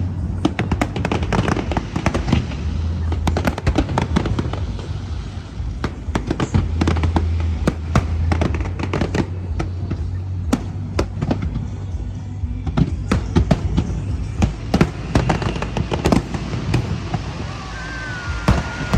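Aerial fireworks bursting in quick succession: many sharp bangs and crackles throughout, over a show's music with steady low bass notes.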